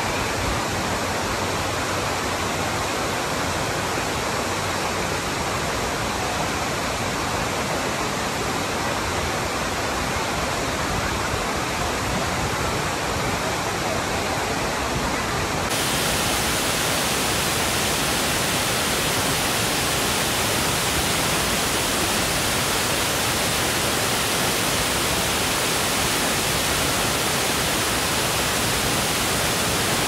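Kapuzbaşı waterfall's water falling and crashing, a steady, dense rushing noise with no breaks. About halfway through it suddenly turns brighter and a little louder.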